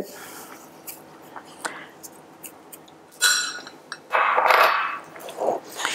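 Salt and pepper being added to a glass bowl of meat-and-pepper filling: a few soft clicks and taps, a short scrape about three seconds in, then a hiss of grains falling for about a second.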